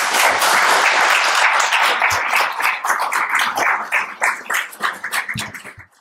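Audience applauding, a dense ovation that thins into scattered separate claps over the last couple of seconds and then cuts off suddenly.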